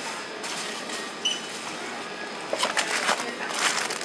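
Rustling and crinkling of a fabric backpack and its contents as things are packed into it by hand, loudest in a burst of irregular crackles in the second half. A short electronic beep sounds about a second in, over steady background noise.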